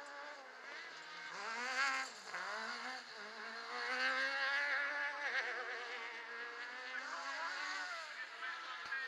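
Autocross buggy's engine revving high as it slides through a dirt corner. The pitch climbs, drops sharply about two seconds in, climbs again to its loudest around the middle, then falls and wavers with the throttle.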